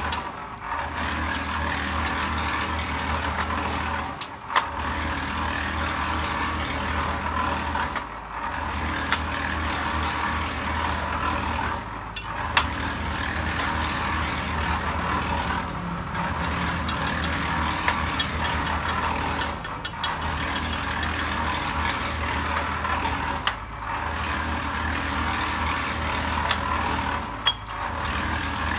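Steady machine running noise with a low hum underneath, dipping briefly at an even rhythm of about once every four seconds, with a few sharp clinks on top.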